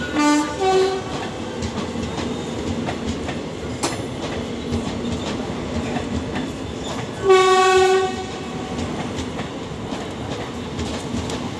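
Passenger coaches rolling into a station, their wheels clattering steadily over the rail joints. A locomotive horn sounds two short notes, the second higher, in the first second, and one longer note of just under a second about seven seconds in.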